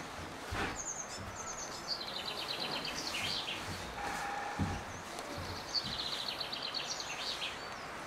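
A small songbird singing twice over steady woodland background hiss: each song is a fast run of high notes that drops in pitch over two to three seconds and ends in a short flourish, the second beginning about five seconds after the first.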